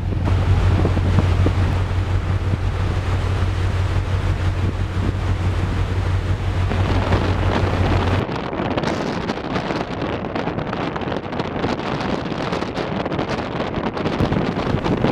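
Strong wind buffeting the microphone on the deck of a moving ferry, over the rush of the sea. For the first half a steady low hum from the ship runs underneath, cutting off suddenly about halfway through.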